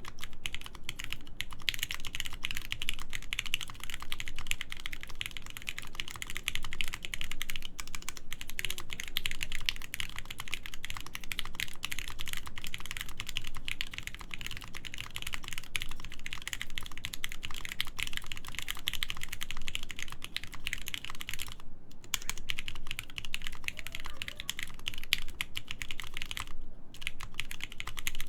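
Steady fast typing on a DD-40 mechanical keyboard with lubed Gateron Mizu switches in a full aluminium plate and PBT keycaps: a dense run of keystrokes, broken by two short pauses a little over twenty seconds in and again near the end.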